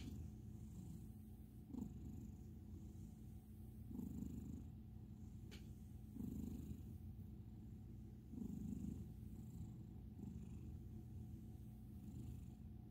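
A ginger American Ringtail cat purring softly and steadily while being stroked, the purr swelling louder about every two seconds.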